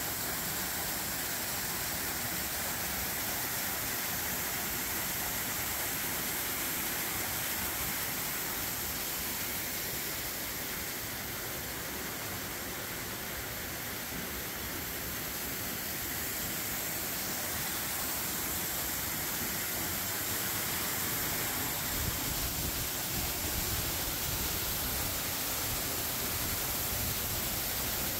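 Steady roar of Pine Island Double Falls, an even rush of falling water with no pitch to it; a deeper low rumble joins near the end.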